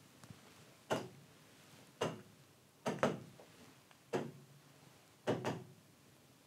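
Pen tip tapping on a touchscreen display: a series of short, sharp taps about a second apart, some in quick pairs, as interface items are selected.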